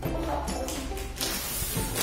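Background music playing, with a short burst of hiss-like noise in the second half.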